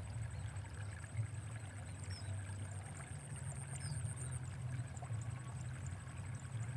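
Open-air ambience with no one speaking: a steady low rumble, a faint high insect-like whine with light ticking, and two brief high chirps about two and four seconds in.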